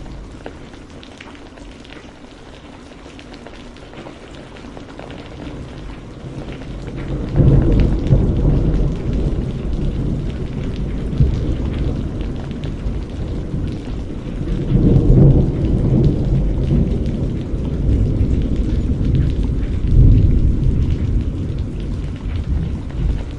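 Steady rain falling, joined about seven seconds in by a long rolling rumble of thunder that swells twice more before dying away near the end.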